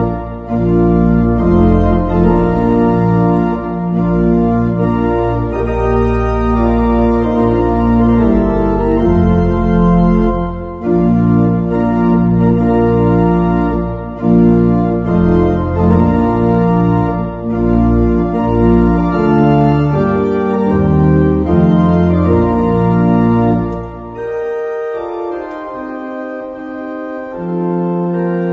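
Organ playing slow, sustained chords over a bass line. About 24 seconds in the bass drops out and softer, higher chords carry on.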